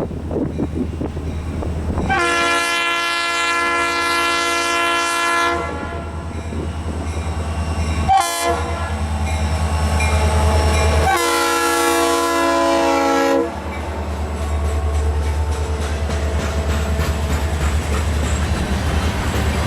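Diesel locomotive horn of an EMD SD40-2 sounding a long blast, a short blast and another long blast, the closing part of a grade-crossing warning. The locomotive's diesel engine rumbles underneath throughout.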